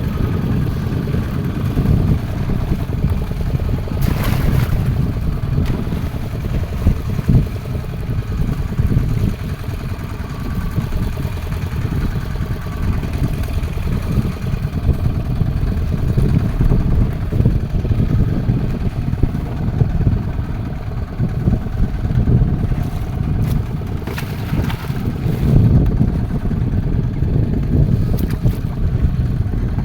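Fishing boat's engine running steadily at sea, a low rumble, with a couple of brief knocks about four seconds in and again near the end.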